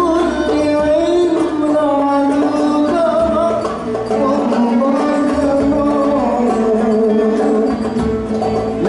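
Live sholawat song amplified through a PA: a man singing a long, drawn-out melodic line into a microphone over percussion accompaniment.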